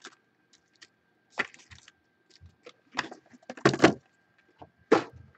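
Cardboard trading-card hobby box being handled as its packs are emptied out: four short scrapes and knocks of cardboard, the loudest about two thirds of the way through.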